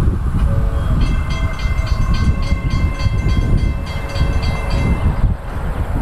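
Synthesized recreation of a Nathan C5A-CWP five-chime train horn sounding one steady multi-note chord from about a second in until it cuts off a little after five seconds. It plays over a heavy low rumble of passing-train noise.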